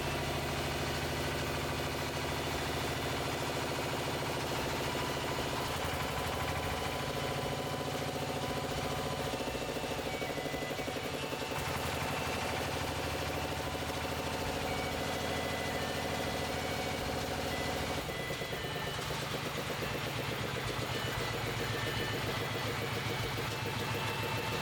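A vehicle engine running steadily, its pitch shifting a few times as the engine speed changes.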